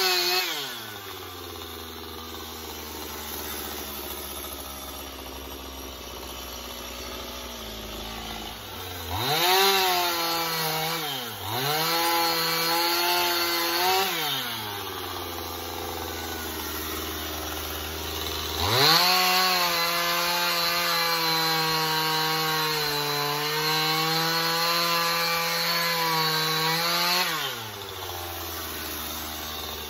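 Stihl MS 271 two-stroke chainsaw idling, then revved to full throttle twice to cut into a wooden log: a burst of about five seconds about a third of the way in, then a longer cut of about eight seconds with the engine pitch sagging under load, before dropping back to idle near the end.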